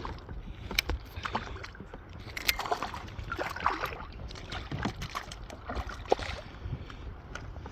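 Water lapping and splashing around a kayak as it moves, with scattered small knocks and splashes.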